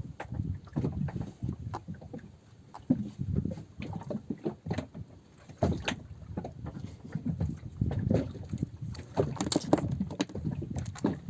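Irregular knocks and slaps on a small boat, with water slapping against the hull.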